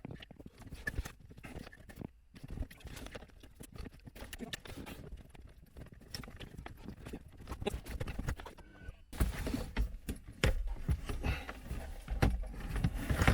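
Rapid, irregular clicking and knocking of hard parts being handled, with heavier thumps and a low rumble in the last few seconds.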